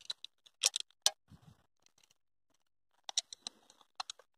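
Scattered light clicks and rattles of fishing gear being handled: a landing net and metal fish grip as a traíra is lifted out. The clicks come in a cluster in the first second and again about three seconds in.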